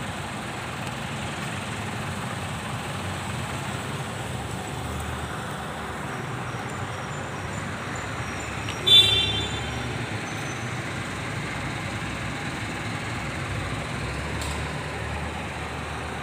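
Steady city street traffic noise, with one short, loud vehicle horn toot about nine seconds in.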